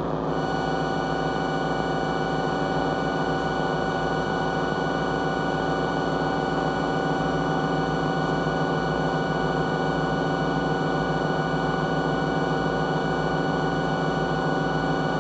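CVP vintage electronic diesel-locomotive sound generator playing its synthesized engine, turbocharger and radiator-fan sounds combined, through a small speaker. A steady locomotive-like rumble, with several steady whining tones over it, holds at an even level.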